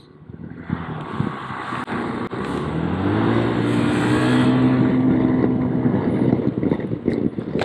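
Honda Forza scooter's single-cylinder engine pulling away: its revs climb about three seconds in and then hold steady while the wind rush on the microphone grows louder.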